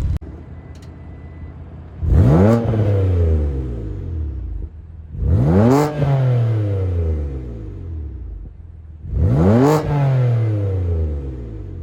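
BMW S55 twin-turbo inline-six, on catless downpipes, a single mid pipe and an EOS axle-back muffler, idling and then blipped three times. Each rev rises quickly and falls back slowly to idle, a few seconds apart.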